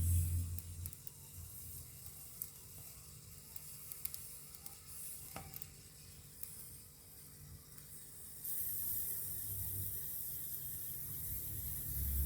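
Something sizzling on heat: a steady hiss with small scattered crackles, one sharper pop about halfway, and the hiss growing louder about eight seconds in.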